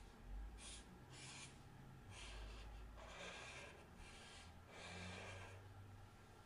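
Black felt-tip marker drawing short strokes on paper: about five faint swishes, a second or less each, in the first five and a half seconds.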